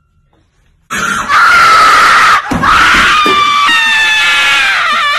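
Near silence, then sudden loud screaming about a second in. The scream breaks off briefly about halfway, then goes on as long high wails.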